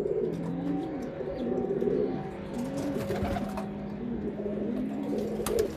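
Several pigeons cooing at once, their low, rolling coos overlapping continuously, with a brief rustle about three seconds in and a few sharp clicks near the end.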